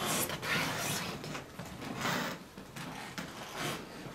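Shuffling, rubbing and creaking noises from people walking and handling things, coming in irregular bursts that are loudest at the start and again about two seconds in.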